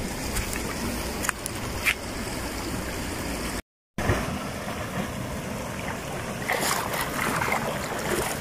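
Water splashing as a person swims in a river pool, over a steady rush of water. The sound cuts out completely for a moment about three and a half seconds in, and the splashing is busiest near the end.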